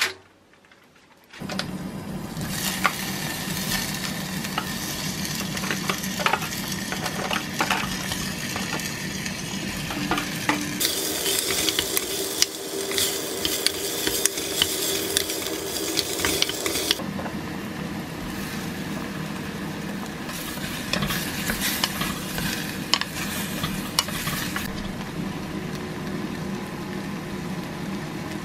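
Vegetables sizzling in an earthenware pot (ttukbaegi) over a gas flame, stirred with a wooden spatula that scrapes and knocks against the pot. It starts about a second in, after a short click, and the sizzle grows brighter for a stretch in the middle.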